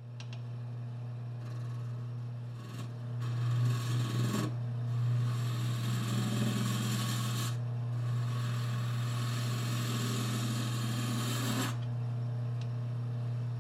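Wood lathe running with a steady hum while the spinning wooden workpiece is rubbed with a rasping, scratchy sound. The rubbing lifts off for short breaks about four and a half, seven and a half and eleven and a half seconds in.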